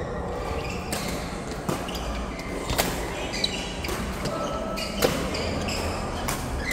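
Doubles rally in a racket sport: sharp hits at uneven intervals, roughly one a second, with short squeaks of shoes on the court floor in between.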